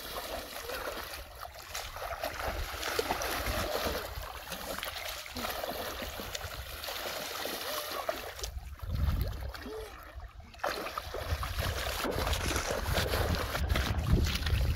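Water splashing and sloshing as a person wades through shallow muddy water and grabs at a fish by hand. A low rumble joins in about halfway through.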